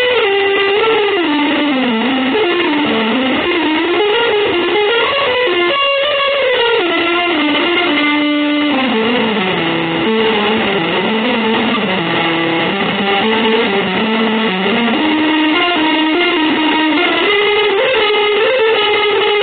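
Electric guitar playing one unbroken melodic line that slides slowly down and back up in pitch, its notes held and run together.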